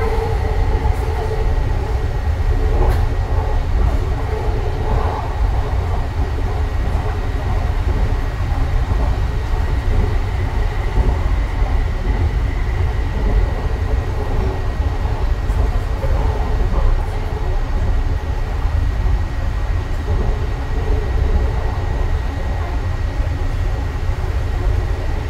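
Interior running noise of a Yongin EverLine light-rail car (Bombardier ART 200 with linear induction motor) cruising on the track: a steady low rumble of wheels on rail with a thin, steady high whine and a few faint clicks.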